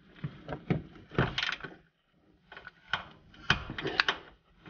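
Torque wrench working a socket extension on an oil pan bolt: irregular metallic clicks and clacks in small clusters as the bolt is tightened in short strokes.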